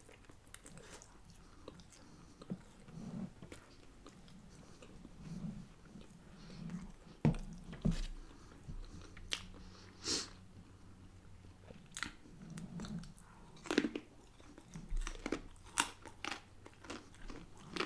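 Close-miked eating: a person biting and chewing crunchy food, with irregular sharp crunches and mouth clicks and soft chewing sounds between them.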